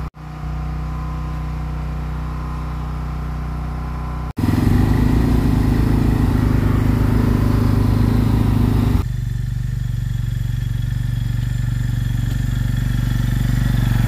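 ATV engine running steadily. The sound changes abruptly twice: it is louder from about four seconds in until about nine seconds in.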